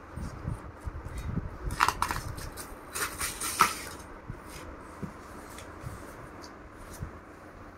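Box cutter slicing through packing tape on a cardboard shipping box, with rasping strokes, clicks and the cardboard flaps scraping as they are handled. The loudest strokes come about two and three seconds in, followed by quieter rustling and scraping.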